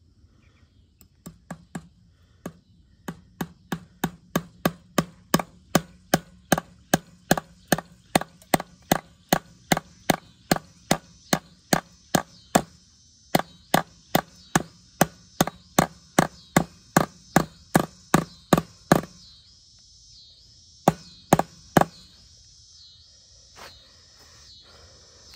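Metal fence staples being hammered into a wooden fence post to hold barbed wire: a long run of sharp, even blows, about two to three a second, stopping about three quarters through, then a few more blows. Insects chirr in the background from about halfway.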